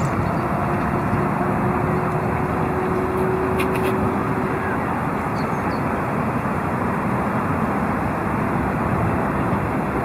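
Steady low outdoor rumble, like distant road traffic, with a faint hum through about the first half.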